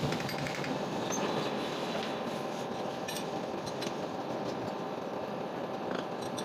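Metal-turning lathe running steadily, with scattered light metallic clicks.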